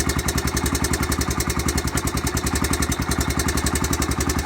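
1987 Honda Foreman four-wheeler's single-cylinder four-stroke engine idling steadily with an even, rapid pulsing exhaust note, on its factory exhaust.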